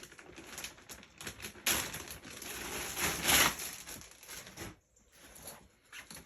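Crinkling and rustling of packaging being handled, with small clicks. It is loudest about two seconds in and again around three seconds, then dies down.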